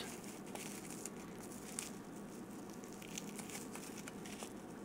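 Faint crinkling of a small plastic bag being cut open with a hobby knife and unwrapped by hand, with a few light scattered ticks over a faint steady hum.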